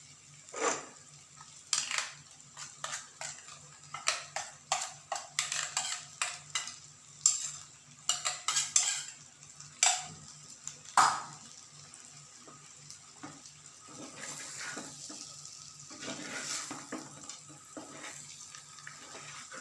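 Metal spoon knocking and scraping against a cooking pot as a ground onion-garlic-spice paste is added, with many sharp clinks over the first half. After that it settles into stirring, with a soft sizzle of the masala frying.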